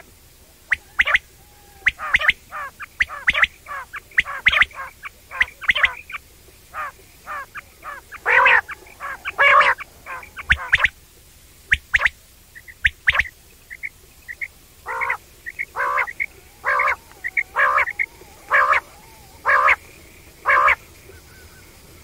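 Quail giving its repeated 'wong wong' call: a long series of short calls, quick and irregular in the first half, then steadier at about one call a second near the end.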